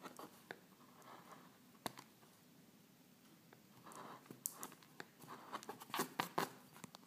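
Lino-cutting gouge scraping into a lino block: faint scattered scratches and sharp clicks, growing busier after about four seconds.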